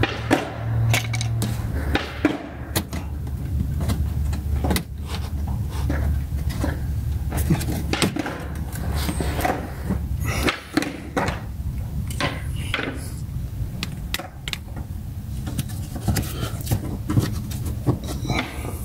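Irregular clicks, knocks and scrapes of hands and a tool working the plastic underbody panel and its fasteners loose beneath a Toyota Prius, over a steady low hum.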